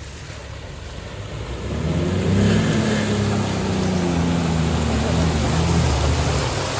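Jeep Wrangler TJ's 4.0-litre straight-six revving hard under load as it drives through deep mud, getting louder about two seconds in, with the tyres churning and throwing mud.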